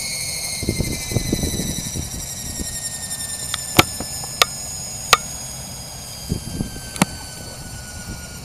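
Electric motor and drive of a large HK-600GT RC helicopter spooling down on the ground: a high whine made of several tones, slowly falling in pitch and fading as the rotor winds down. Four sharp clicks sound in the middle.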